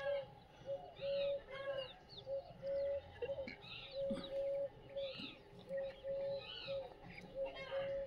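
Free-range desi chickens and chicks chirping and peeping in short, arching calls, many overlapping. Beneath them a steady, held note repeats roughly once a second.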